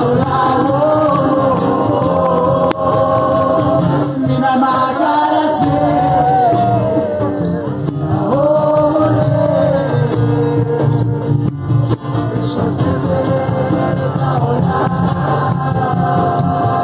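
Live acoustic music: several voices singing a wavering, drawn-out melody together over classical guitar, hand percussion and bass.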